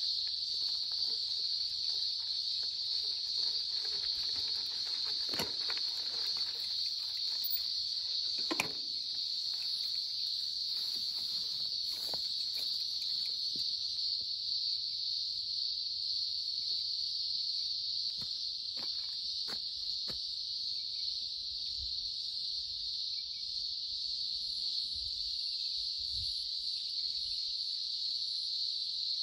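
Steady, high-pitched drone of insects in the summer bush, with a few faint clicks, the clearest about eight seconds in.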